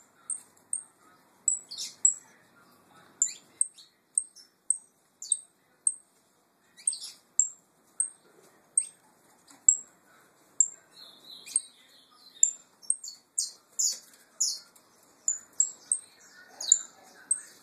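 Caged Peruvian saffron finches giving short, high chirps over and over, about two a second, some sweeping quickly downward; a buzzier call comes a little before halfway, and the calls crowd closer together near the end.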